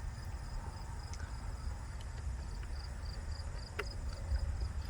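Crickets chirping faintly in short, evenly repeated high-pitched pulses over a low steady rumble, with one light click about four seconds in.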